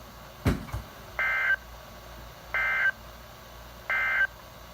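A sharp thump about half a second in, then three short, identical bursts of Emergency Alert System SAME data tones, each under half a second and about 1.3 s apart: the end-of-message code that closes a NOAA Weather Radio alert.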